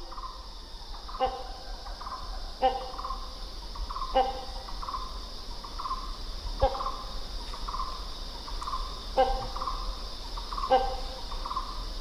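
A hornbill giving short, harsh calls, repeated about every second and a half, with softer notes in between. A steady drone of insects sounds underneath.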